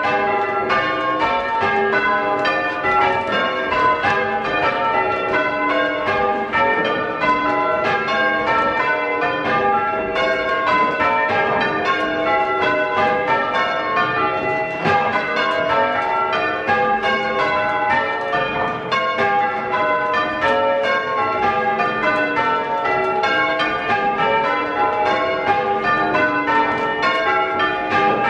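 A ring of six church bells, the tenor of 8-3-22 cwt tuned to G, rung full-circle in changes, heard from the ringing chamber: a steady, unbroken succession of bell strikes.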